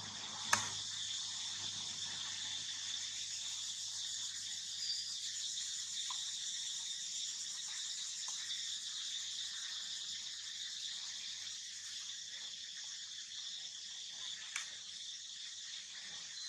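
Steady, high-pitched chorus of insects, with a sharp click about half a second in and another near the end.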